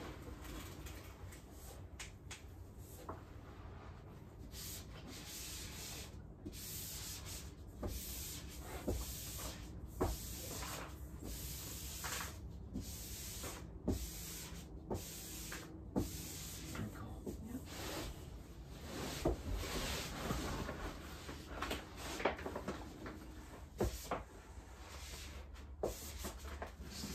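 Peel-and-stick wallpaper being pressed and smoothed onto a wall by hand: irregular rustling and rubbing, with scattered light knocks and bumps.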